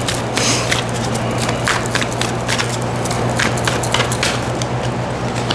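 Tarot cards being handled and laid out on a surface: irregular sharp clicks and taps, several a second, over a steady low hum.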